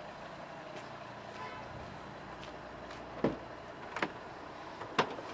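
Volvo XC90's split tailgate being opened: a few short latch clicks and knocks as the upper hatch and the lower flap are released, over a steady low background hum.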